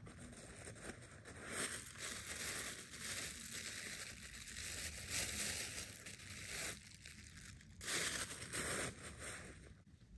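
Hands cleaning a freshly picked porcini (Boletus edulis) mushroom: a rustling, crinkling scraping noise, broken by a short pause about seven seconds in.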